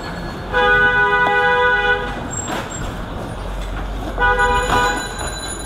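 A vehicle horn sounds twice in street traffic, each a steady, unwavering blast: the first lasts about a second and a half, the second about a second.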